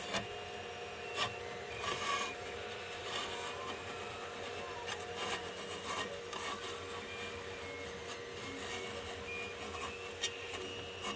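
Irregular scraping and rubbing of hard plastic against a tool and work surface, with scattered clicks, over a steady low mechanical hum.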